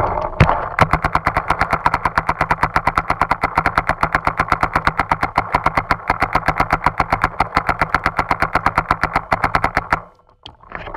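Paintball marker firing in rapid, steady bursts of about ten shots a second as covering fire, stopping suddenly near the end.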